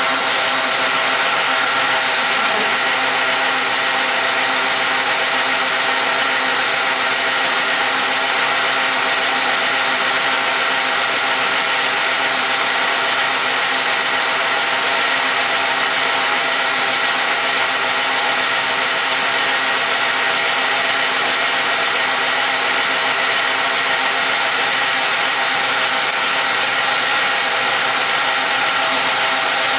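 South Bend lathe running at 270 rpm while a shop-made parting tool cuts through 1-inch 1018 mild steel round stock under power feed, with cutting oil applied. It makes a steady, unbroken mechanical drone of several held tones over the noise of the cut.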